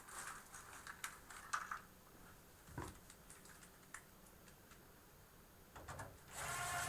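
Faint scattered clicks and light rubbing of hardware being handled in a computer case, with a single knock about three seconds in and a longer scrape near the end.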